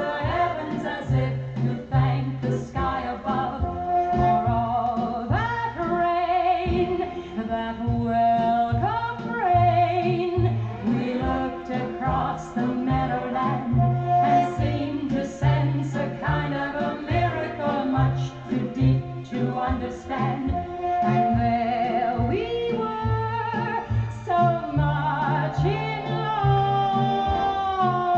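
A 1958 orchestral pop recording played from a 78 rpm record: singing over orchestral accompaniment with a regular bass beat.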